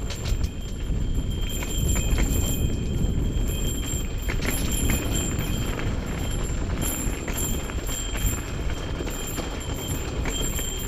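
Mountain bike riding fast down a dirt and rocky trail, heard from a camera mounted on the bike: tyres crunching over dirt and stones, and the bike rattling and clattering over bumps, under a steady wind rumble on the microphone. A faint high whine comes and goes.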